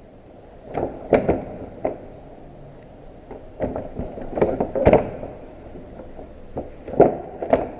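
The hard plastic grille cover panel of a Mercedes W212 knocking and clacking as it is pulled free of its clips and handled, in three bunches of sharp knocks: about a second in, around four to five seconds in, and near the end.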